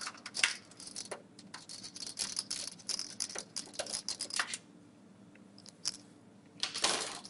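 A screwdriver turning out a small screw from a steel computer case frame: a quick run of light metallic clicks and scrapes for the first four and a half seconds, then a short lull, then a few more clicks near the end.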